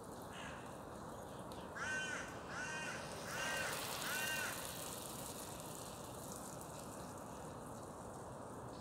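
A parakeet giving four harsh, screeching calls in quick succession, about two-thirds of a second apart, a couple of seconds in, after one fainter call near the start.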